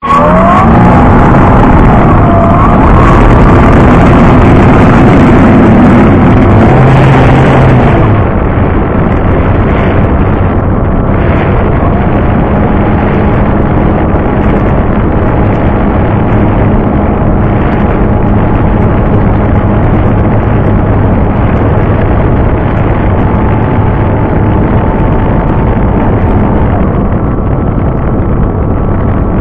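Wind rushing over the microphone of a camera carried aboard a flying RC model plane, with the motor and propeller whine gliding up and down in pitch for the first eight seconds or so, then running steadier.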